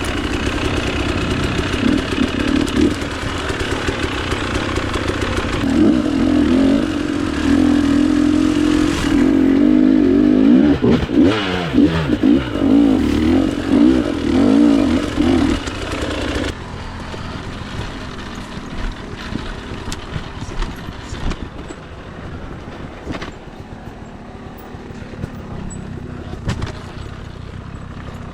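Two-stroke dirt bike engine being ridden on a trail, revving up and down with the throttle. About sixteen seconds in the engine note falls away to a much quieter sound with scattered ticks and clicks.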